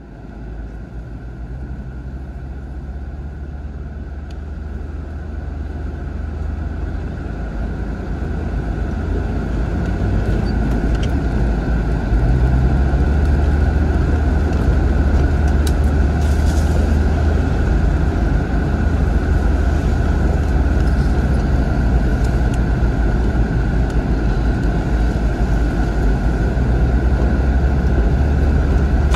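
Land Rover Discovery Td5 driving, its 2.5-litre five-cylinder turbodiesel giving a steady low rumble with a steady higher hum above it. The sound grows louder over the first dozen seconds, then holds steady.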